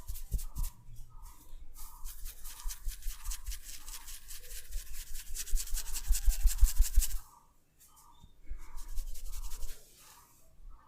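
Hands rapidly rubbing and tapping on oiled hair and scalp in a head massage: a fast, continuous run of strokes that stops abruptly about seven seconds in, then a shorter, softer bout near the end.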